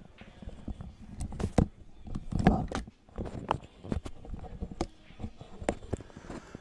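Irregular light knocks and clicks, with a duller, louder bump about two and a half seconds in, while two pool balls roll back down the table after the lag shots.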